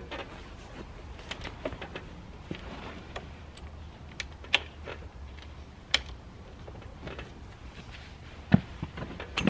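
Scattered sharp metal clicks and knocks of hand tools and parts being handled on an ATV engine, with a single louder knock near the end.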